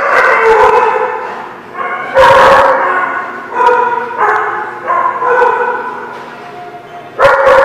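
Dog barking repeatedly, about six loud barks, several drawn out into longer pitched calls.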